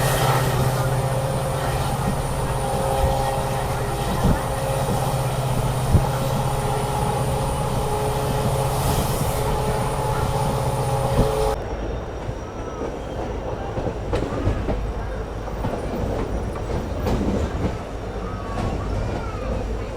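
Passenger train running, heard from on board: steady rumble of wheels on rail with a few sharp knocks and a steady hum over the first half. About halfway through, the sound drops abruptly to a quieter, duller rumble.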